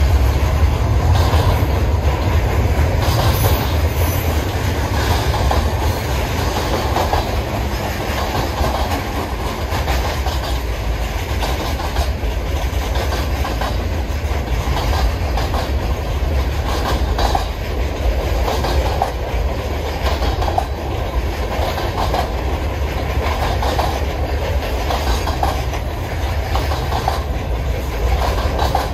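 Freight train cars (double-stack container well cars, boxcars and covered hoppers) rolling past at steady speed: a continuous low rumble with the wheels clacking over rail joints.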